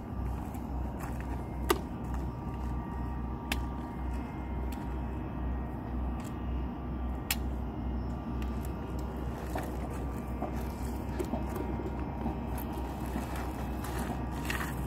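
A three-wheeled golf push cart being folded by hand: a few sharp clicks from its frame joints and latches over a steady low rumble.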